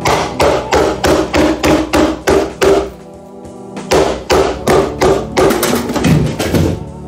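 Rubber mallet hammering the wooden side rails of a resin-table mould, knocking the mould off the cured resin. Rapid strikes, about three a second, pause for about a second midway, then resume. Background music plays underneath.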